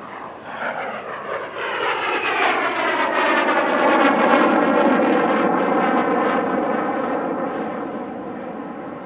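Display jet flying past: engine noise rises to a peak about four seconds in, then fades away, with a sweeping tone that falls in pitch as the jet passes.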